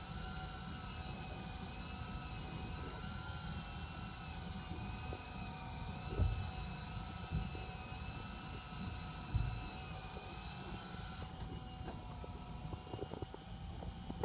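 Fishing boat's engine running steadily with a slowly wavering whine over it, with a few low thumps on the hull; about eleven seconds in the higher part of the sound drops away.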